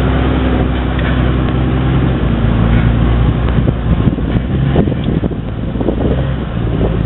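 Jeep Cherokee engine running steadily under load as the truck crawls up a rock ledge.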